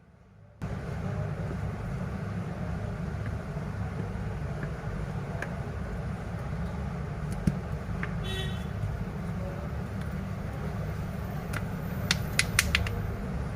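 Steady low rumble of road traffic, with a short high toot about eight seconds in and a quick run of sharp clicks near the end.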